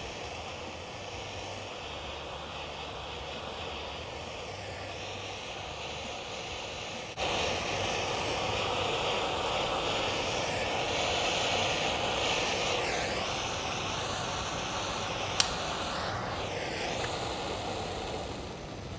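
Portasol HP820 butane torch flame hissing steadily while heating a copper pipe joint, louder from about seven seconds in. A single sharp click comes near the end.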